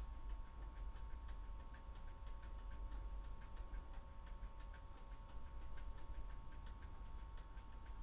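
Faint, irregular clicking of keys typed on a computer keyboard, a few strokes a second, over a low steady hum.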